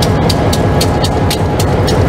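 Providence & Worcester diesel locomotive running close by: a loud, steady low engine drone with a rapid, regular clicking over it.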